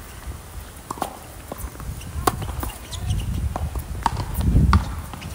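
Tennis ball being struck back and forth in a singles rally on a hard court: sharp racket hits and ball bounces a second or so apart, with sneaker steps. A low rumble swells in the second half, loudest about four and a half seconds in.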